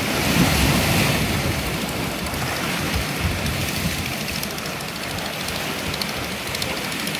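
Steady rushing of choppy sea waves washing against the shore, with wind.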